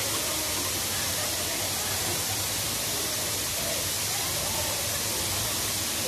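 Waterfall pouring down a narrow rock gorge into a pool: a steady, even rush of falling water.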